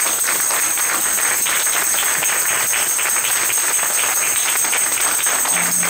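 A crowd applauding, a steady clapping of many hands.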